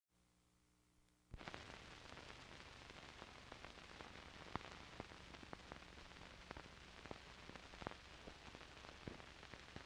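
Faint hiss with scattered crackles and pops from an old 16mm film's soundtrack running over the countdown leader, starting after about a second and a half of dead silence.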